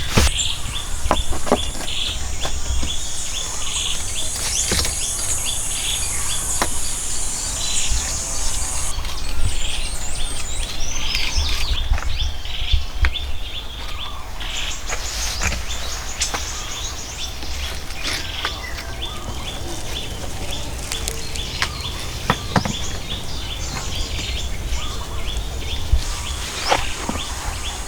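Woodland birds chirping, with a high insect drone over the first several seconds and scattered sharp knocks and clicks.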